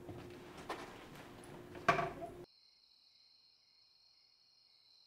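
An apartment door is pushed shut, with a sharp bang about two seconds in. Then very faint, steady chirring of night insects such as crickets.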